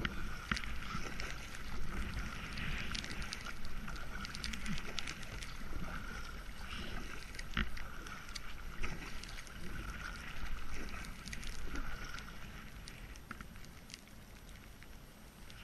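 Kayak paddle strokes splashing and dripping through river water in a steady rhythm, about one stroke every second or so, with light wind on the microphone; the strokes get quieter near the end.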